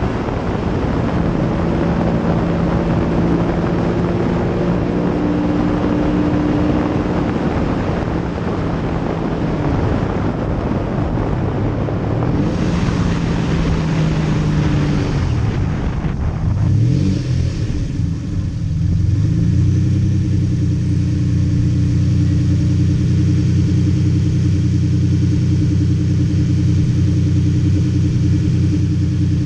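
Lamborghini Diablo SE30's V12 engine running under way, picked up from its engine cover with heavy wind and road noise over it. A little past halfway the engine pitch briefly shifts. After that the wind noise drops away and the engine holds a steady drone.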